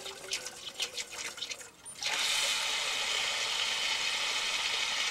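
Water from an outdoor tap running steadily into a container, coming on suddenly about two seconds in. Before that there are a few light drips and taps.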